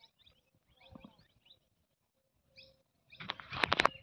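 Wading through shallow floodwater: a cluster of loud splashing steps near the end, with faint bird chirps in the background.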